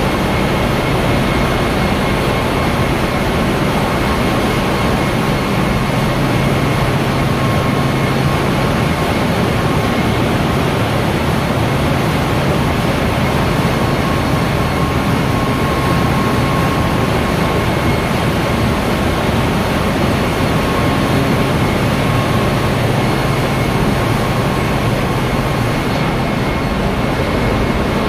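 Container ship's engine-room machinery running: a loud, steady din with a constant high whine over a low hum.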